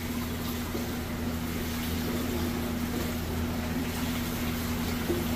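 Electric aquarium pump running with a steady low hum and an even rushing hiss over it.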